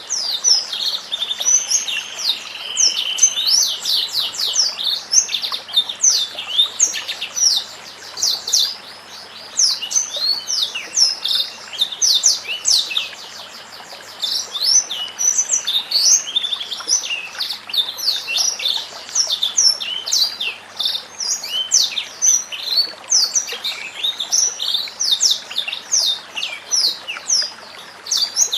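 White-rumped shama (murai batu) singing: a fast, nearly continuous run of short high whistles and chirps with quick rising and falling slides, easing off briefly a few times.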